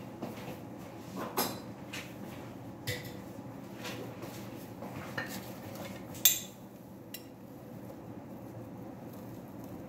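Kitchen clatter of a spoon and a jar being handled: scattered light clinks and knocks, the sharpest about six seconds in, over a steady low hum.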